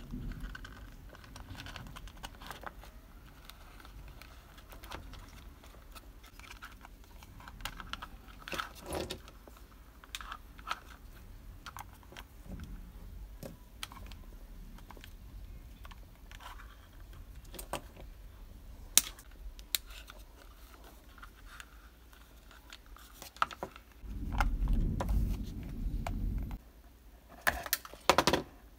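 Light clicks and taps of small plastic parts being handled: wire-harness connector plugs pushed into the back of a digital voltmeter-ammeter and the meter pressed into a clear plastic box. A sharper click comes about 19 seconds in, and a low rumble lasts about two seconds near the end.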